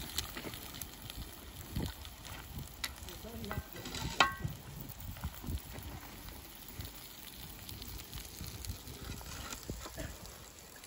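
Serving utensil clinking and scraping against plates and the camp oven as food is dished up, with one sharp ringing clink about four seconds in.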